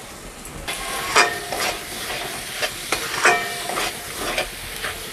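A spatula stirring and scraping a lote fish and spice mixture around a frying pan over a low sizzle. Several sharp knocks against the pan, the loudest about a second in and a little past three seconds in, ring briefly.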